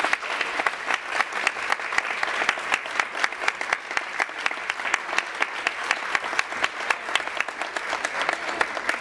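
Theatre audience applauding: a steady crowd of clapping, with sharp single claps from hands close by standing out.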